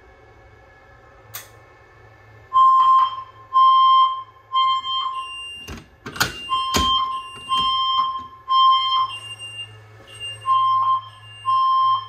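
Fire alarm speakers sounding the evacuation alert tone after a manual pull station is activated. A short electronic tone comes three times with a pause after each group, the temporal-three pattern, starting about two and a half seconds in and repeating. Sharp clicks come a little before the middle, as the pull station is handled.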